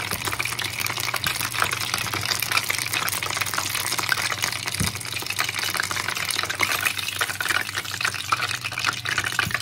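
Meat-filled wontons deep-frying in hot vegetable oil: a steady, dense sizzle full of small crackles, over a low steady hum.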